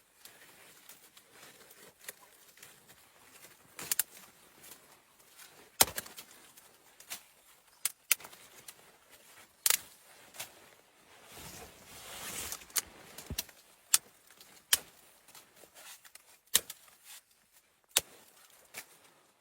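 A series of irregular sharp clicks and knocks, with a short scraping rustle about twelve seconds in.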